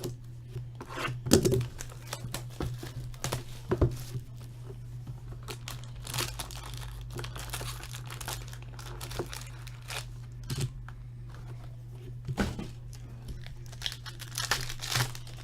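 Plastic wrapping crinkling and tearing as a sealed box of hockey trading cards is opened, with irregular crackles and handling knocks, over a steady low hum.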